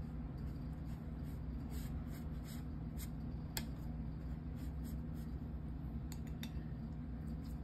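Paintbrush scratching and rubbing across wet watercolour paper in short, scattered strokes as dark background paint is laid along the edges, over a steady low hum.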